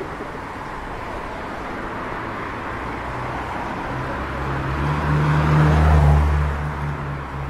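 Street traffic noise with a motor vehicle passing close by on the road: its low engine hum builds from about three seconds in, is loudest around six seconds, and then fades.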